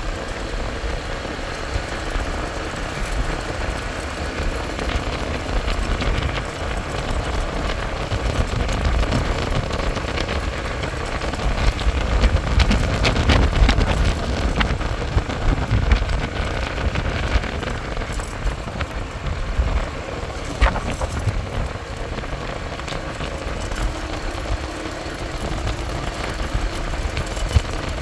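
A motorbike riding along at a steady pace, heard from the rider's position: engine and road noise under wind buffeting the microphone, with a low rumble and fine crackling, a little louder about halfway through.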